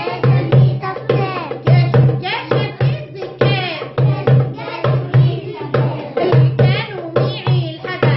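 Darbuka (goblet drum) beaten in a steady, lively rhythm of deep and sharp strokes, while a woman sings a song along with it.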